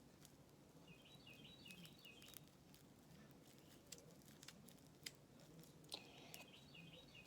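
Faint sticky clicks and pops of store-bought slime being squished and pulled between the fingers, the slime tacky and stringy. Two short runs of faint, quick high chirps sound about a second in and again near the end.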